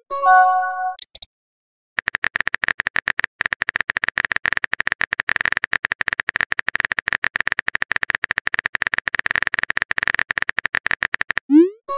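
Texting-app sound effects: a short message-arrival chime of a few notes at the start, then a fast, even run of soft keyboard clicks for about nine seconds from about two seconds in. Near the end comes a quick rising swoosh as a message is sent.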